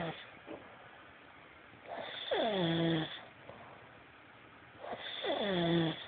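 Snoring: two long snores about three seconds apart, at about two and five seconds in, each sliding down in pitch and settling into a low steady tone for a moment. The tail of another snore ends right at the start.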